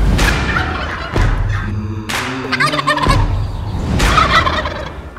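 Wild turkey gobbling several times, each gobble a short rattling call, the last ones fading out.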